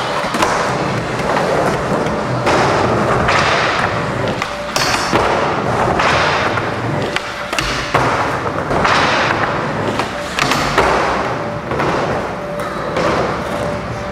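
Skateboard wheels rolling on plywood ramps, with several thuds and clacks of the board hitting and landing on the ramps.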